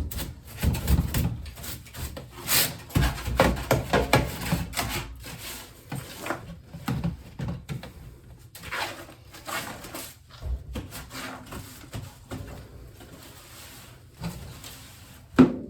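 Irregular rubbing, scraping and light knocks of hand cleaning behind a pulled-out clothes dryer, with one sharp knock just before the end.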